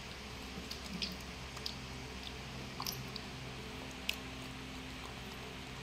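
Faint wet clicks and smacks of grapes being peeled by hand and chewed, a few scattered ticks over a steady low hum.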